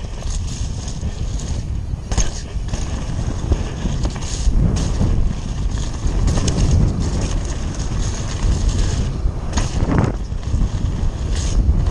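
Nukeproof Scalp downhill mountain bike descending a rough dirt trail at speed: a constant rush of wind and tyre rumble, with frequent knocks and rattles from the bike hitting bumps.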